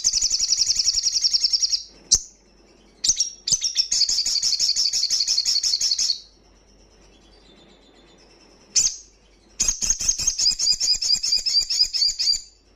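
Male olive-backed sunbird singing loudly: three long bouts of rapid, high trilled notes, with a short sharp call between them.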